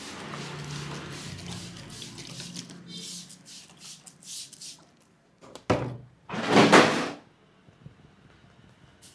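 Hands working on a man's head and neck in a barber's massage: a run of brisk rubbing and slapping strokes, one sharp click a little past halfway, then a louder rush of noise lasting under a second.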